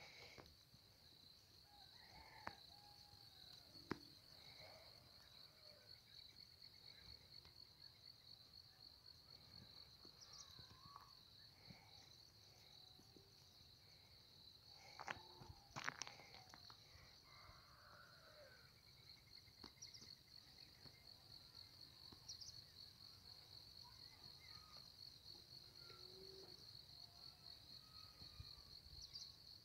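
Faint, steady high-pitched chirring of insects, with scattered faint bird calls. A few sharp knocks stand out, about four seconds in and again around sixteen seconds.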